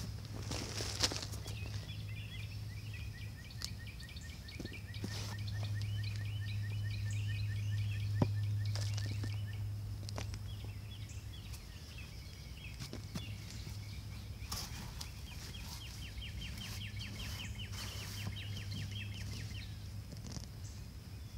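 A gloved hand rustling and scraping through loose potting soil in a tipped plastic container, with scattered soft clicks. A steady low hum runs underneath, and a rapid high trill of repeated notes sounds for several seconds at a time, twice.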